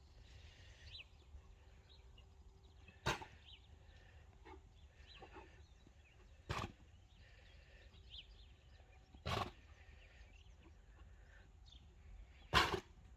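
Horse coughing while working on the lunge line: four sharp, loud coughs about three seconds apart. The horse has severe equine asthma, and the coughing is the sign of mucus coming loose after an inhaled mucolytic.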